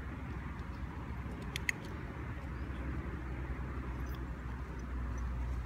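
A dog-training clicker gives one sharp double click, press and release, about a second and a half in, marking the dog holding position on a slack lead, the signal that a treat is coming. A steady low rumble runs underneath.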